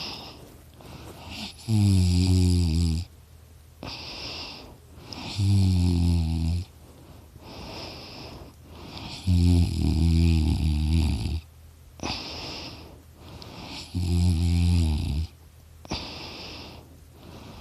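A person snoring in sleep: four loud, low snores, one about every four seconds. Between them are quieter breaths with a high, steady nasal whistle. He puts the snoring down to extra tissue in his throat.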